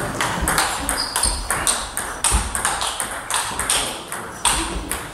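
Table tennis rally: the celluloid ball clicks off the bats and bounces on the table, about three sharp clicks a second, echoing in a sports hall.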